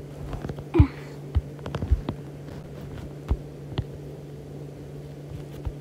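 A steady low electrical hum, with scattered light taps and clicks of a stylus on a tablet's glass screen while drawing.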